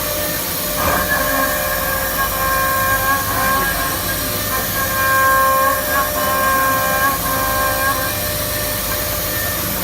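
Gantry CNC machining center milling aluminium: a steady cutting whine of several held high tones over a constant hiss, the tones firming up about a second in.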